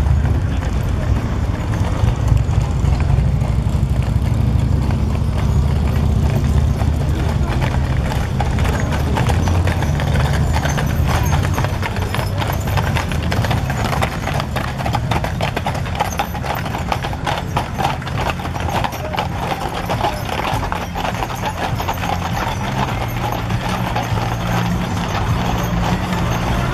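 Shod hooves of the Budweiser Clydesdale eight-horse hitch clip-clopping on asphalt as the team walks past, many overlapping strikes that are thickest in the middle, over a steady low rumble.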